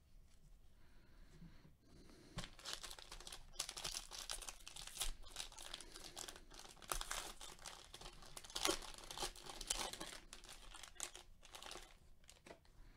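Plastic wrappers of baseball card packs being torn open and crinkled by hand: a crackling rustle that starts about two seconds in and dies down near the end.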